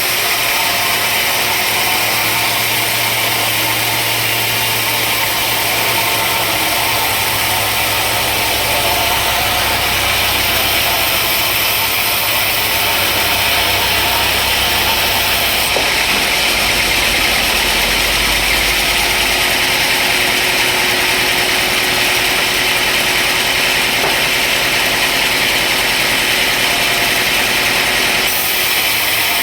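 Sawmill machinery running steadily: a continuous motor drone with mechanical noise, its low hum shifting about halfway through.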